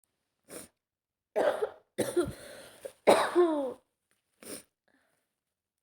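A woman sneezing: three sharp bursts in quick succession, the last the loudest, with a short faint breath before and after.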